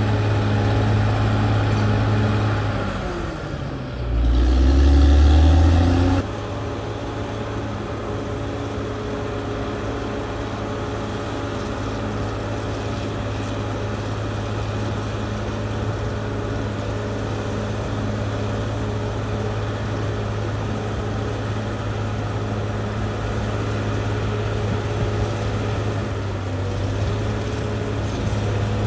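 Caterpillar D6R XL bulldozer's diesel engine running steadily. About three seconds in the engine note falls. A heavier, lower engine sound then runs for about two seconds and breaks off abruptly, and a steady engine note holds from there on.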